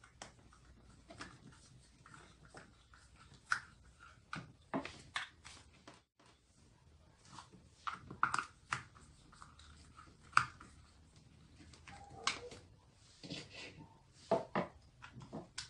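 Screwdriver turning screws into a hot glue gun's plastic housing, with irregular clicks, squeaks and small knocks as the plastic shell is gripped and handled.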